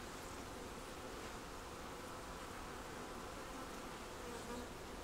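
Honeybees humming steadily around a comb frame lifted out of an open hive.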